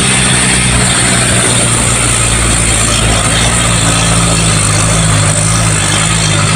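Truck engine running steadily: a low hum under a loud, even rushing noise.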